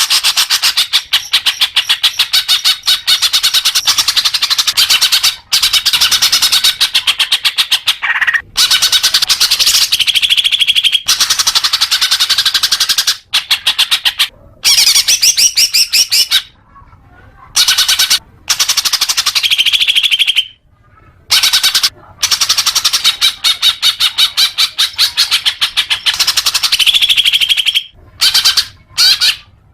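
Green leafbird (cucak hijau) singing a long, fast, chattering song of rapid high notes, broken by several short pauses. It is the kind of song played to caged leafbirds to get them singing fluently.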